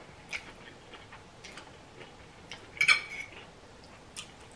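Close-up eating sounds: soft mouth clicks and smacks while chewing noodles, with a louder clink of a metal fork against the plate about three seconds in.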